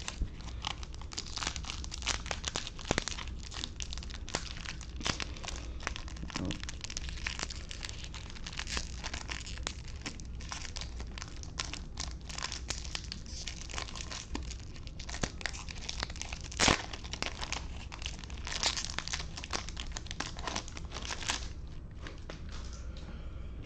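Foil wrapper of a Topps Chrome baseball card pack crinkling and tearing as it is pulled open by gloved hands, in dense crackles that die away shortly before the end.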